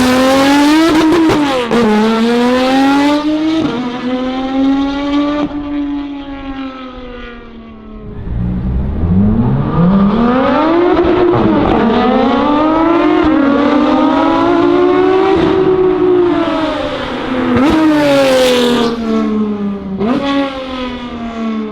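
Porsche 911 GT3 RS flat-six launching and accelerating hard, its pitch climbing and dropping at each upshift. The engine fades briefly, then revs up again in long rising and falling sweeps with more gear changes, and ends at a steady lower note.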